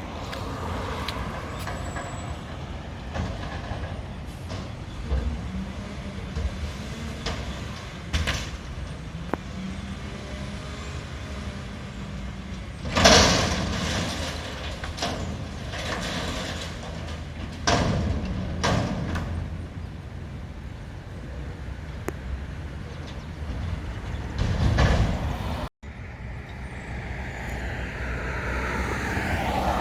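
Mack garbage truck with a McNeilus front-loader body, its diesel engine running and changing pitch, with several loud sudden noises, the loudest about halfway through. Near the end the engine pitch rises and falls.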